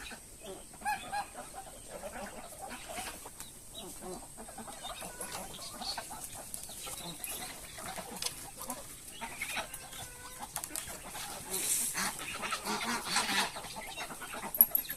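Chickens clucking in short, scattered calls, with light knocks and rustles in between.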